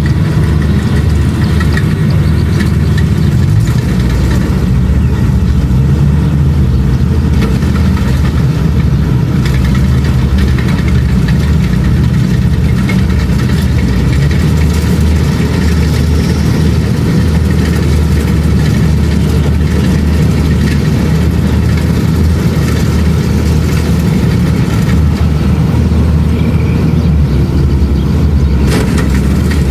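Kubota DC-70 Plus combine harvester running steadily while harvesting rice, a constant low engine drone.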